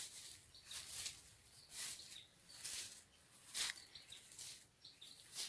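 Footsteps swishing through orchard grass, about one step a second, faint, with small birds chirping now and then.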